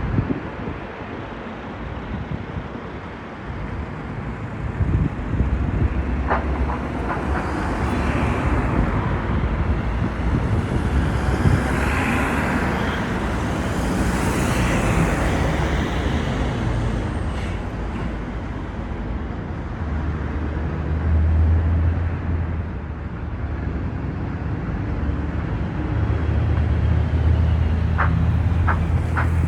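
Road traffic: a motor vehicle passes, its noise swelling and fading around the middle, and later a low engine hum runs near the end.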